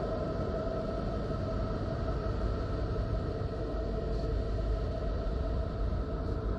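The so-called sound of Neptune: NASA Voyager space data turned into audio. It is a steady, deep rumbling drone with a few faint held tones above it.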